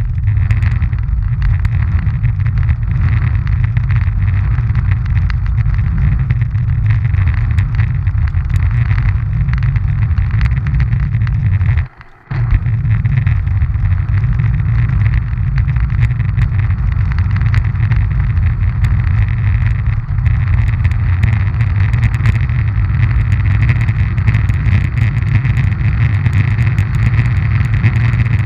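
Roller-ski wheels rolling over coarse asphalt: a loud, steady rumble with a hiss above it, heard right at the wheels. It cuts out for a moment about twelve seconds in.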